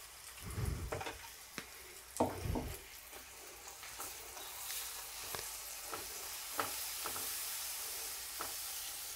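Ground masala paste hitting hot oil and onions in a kadhai: a couple of soft plops as it goes in, then a steady sizzle that builds from about four seconds in as it starts to fry. A spatula clicks and scrapes against the nonstick pan as the paste is stirred in.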